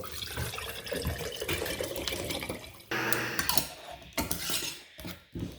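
Water being poured from a bottle into a container to dissolve citric acid, with a fresh, louder pour starting about three seconds in.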